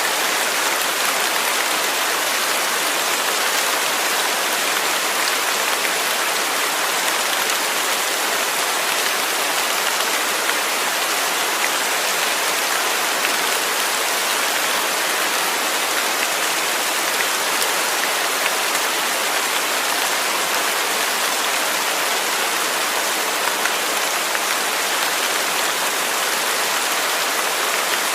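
Steady heavy rain falling, an even hiss of many drops with no thunder.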